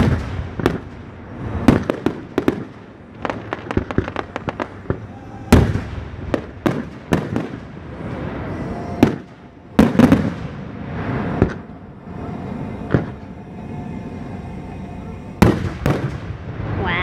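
Aerial fireworks going off: shells launching and bursting in irregular sharp bangs, with a quick run of crackling pops a few seconds in and heavier booms near the middle and end.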